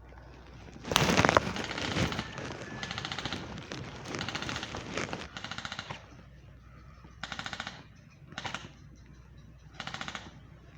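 Airsoft guns firing in short full-auto bursts, about seven rapid rattling volleys in all, the loudest about a second in.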